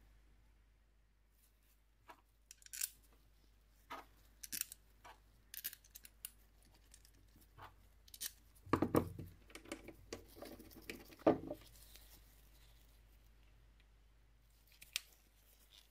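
Scattered light metallic clicks and clunks as Tokico brake caliper halves and their bolts are handled and fitted together, with the loudest knocks about nine and eleven seconds in.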